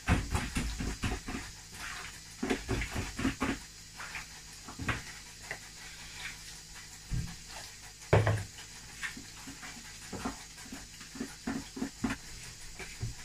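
Wet puff-puff batter being mixed in a plastic bowl, by hand and then with a spoon: irregular squelches and slaps, with two duller thumps about seven and eight seconds in.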